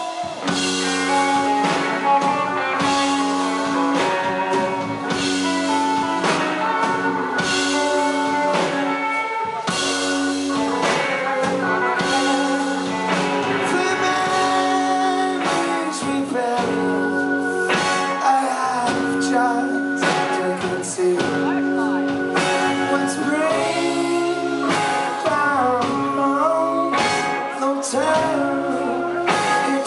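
Live rock band playing a song: electric guitars, electric bass and drum kit, with a male lead vocal singing over them.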